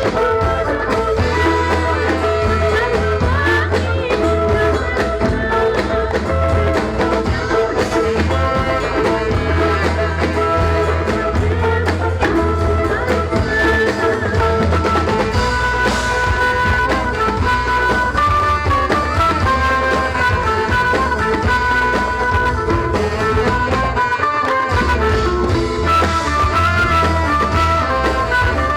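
A music ensemble playing a zapin, Malay-style folk music: a melody over steady drumming and bass.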